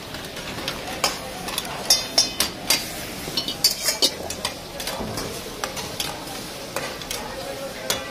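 Long metal spatulas scraping and clanking against iron karahi woks as mutton fries with a steady sizzle over wood fires; the strikes come irregularly, in quick clusters at times.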